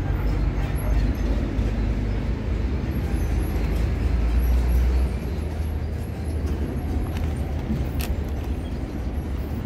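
Parked coach's diesel engine idling with a steady low rumble, a little quieter after about five seconds.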